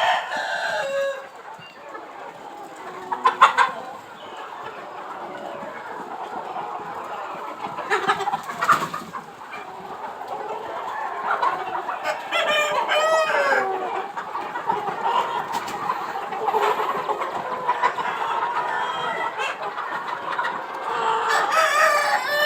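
A flock of Aseel chickens clucking continuously, with sharp short calls about three and eight seconds in and long rooster crows around the middle and again near the end.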